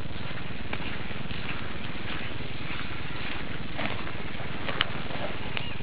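A steady rushing outdoor noise on the microphone, with a few light clicks and squelches of footsteps through wet grass and mud.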